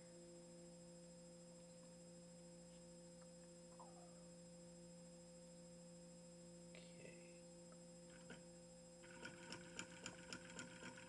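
Homemade nail-and-coil electric motor starting to spin about nine seconds in, its contacts clicking rapidly and unevenly as they make and break the current with tiny sparks. Before that, near silence with a faint steady hum.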